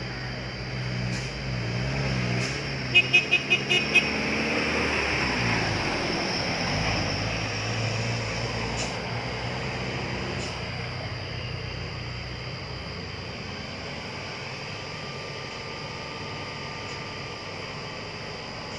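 Truck diesel engines pulling up a hill and passing close by, then fading away after about eight seconds. About three seconds in there is a quick run of about six loud, sharp blasts.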